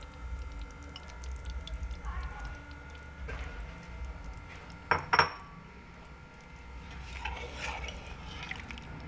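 A metal ladle clinks sharply against a cooking pot twice about five seconds in, then scrapes faintly as it starts mixing yogurt into the curry, over a steady low hum.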